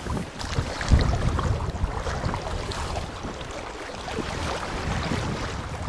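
Wind buffeting the microphone on an open boat: an uneven, gusty rumble with no engine running, strongest about a second in.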